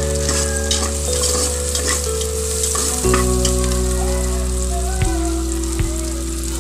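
Onions, garlic and ginger sizzling in hot oil in an aluminium pressure-cooker pot, with a spatula stirring and scraping the bottom in scattered light clicks. Held low tones sound underneath, shifting in pitch every second or two.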